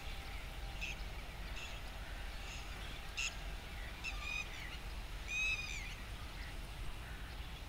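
Birds calling: a few short chirps in the first three seconds, then two longer calls about four and five seconds in, each rising and falling in pitch, over a low steady rumble.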